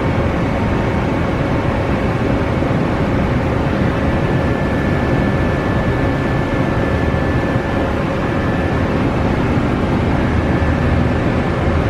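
Mori Seiki SL-403C CNC turning center running under power: a steady mechanical drone with faint high whining tones, typical of the spindle and hydraulics turning over.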